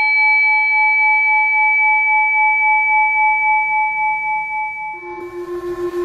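Tibetan singing bowl ringing after being struck, a few steady overtones slowly fading. About five seconds in, a lower wavering tone with a hiss comes in over the fading ring.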